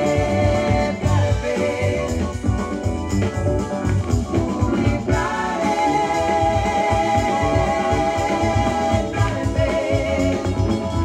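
A 1977 soft-rock/funk single playing from a 45 rpm vinyl record on a turntable: singing over drums, bass and guitar with a steady beat.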